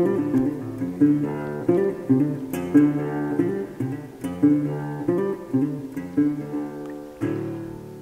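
Background music of plucked acoustic guitar playing a picked melody, with a last chord struck about seven seconds in that rings out and fades.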